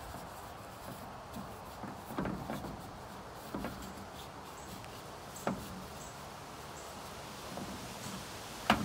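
Handling a chainsaw being readied for use: a few scattered plastic clicks and knocks, with the sharpest knock near the end.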